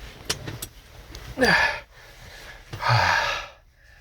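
A man's breathy vocal sounds: a sigh that falls in pitch about a second and a half in, then a loud noisy exhale about three seconds in, with a few light clicks before them.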